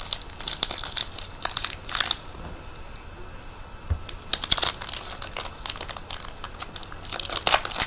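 A trading card pack's wrapper crinkling and tearing as the pack is opened by hand, irregular crackles with a pause of about two seconds midway.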